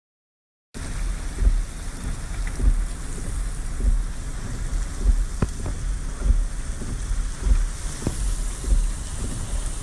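Rain pouring down in a storm, with wind buffeting the microphone in gusty low rumbles and a few sharp ticks of drops striking. It begins abruptly under a second in.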